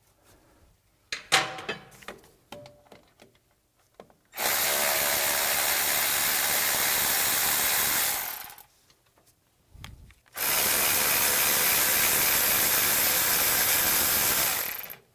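Pneumatic hand tool running in two steady bursts of about four seconds each, backing out the bolts that hold the hub bearing to the steering knuckle. A few metal clinks come before it, about a second in.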